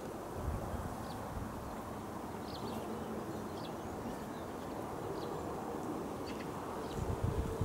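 Open-air meadow ambience: a steady low hiss with short, high bird chirps every second or so. Near the end come low rumbling bumps, like wind or handling on the microphone.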